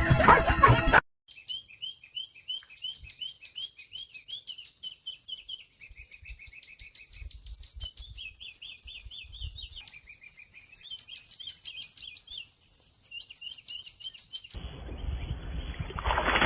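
A bird chirping in rapid runs of short, sharp notes. It follows a second of loud sound that cuts off abruptly. Near the end a rushing noise cuts in and grows louder.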